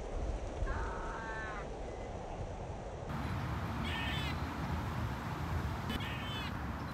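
Animal calls: three short calls with a bending pitch, about a second in, a little past the middle and near the end, over a steady low rumble.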